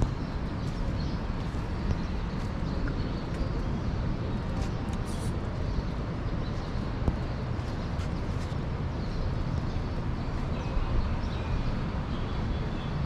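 Steady outdoor beach ambience: a constant low rumble, with a few faint bird chirps now and then.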